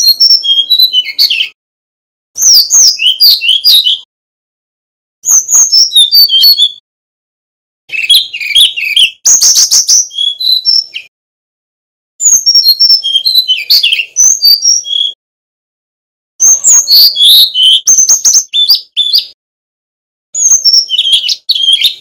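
Male brown-chested jungle flycatcher singing: seven bursts of quick, high-pitched warbled phrases, each one to three seconds long, with short silences between them.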